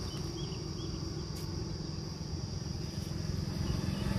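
Steady high-pitched insect buzz over a low rumble, with a few short bird chirps in the first second and one faint click about a second and a half in.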